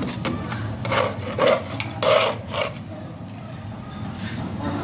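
Four short rubbing, scraping strokes in under two seconds, starting about a second in, then a fainter rub near the end, over a low steady hum.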